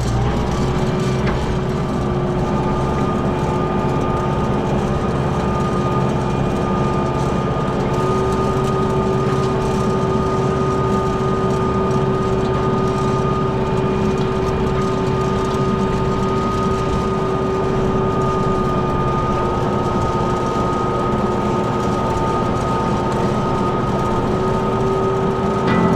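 Farm tractor engine running steadily under load in a hay field, with a steady high whine from the driveline over the engine rumble.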